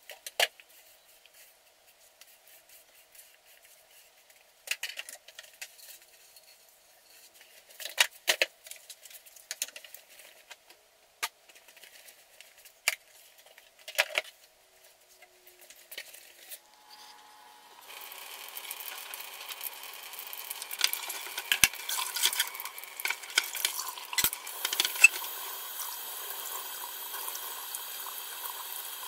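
Scattered clicks and knocks from a broom sweeping a tiled floor and a domed plastic litter box being handled. About eighteen seconds in, a kitchen faucet starts running into a stainless steel sink, with clattering as the pet water fountain's parts and pans are rinsed.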